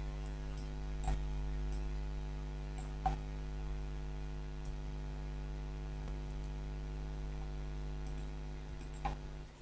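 Steady electrical mains hum, with a few faint clicks about a second in, about three seconds in and near the end; the hum drops away at the very end.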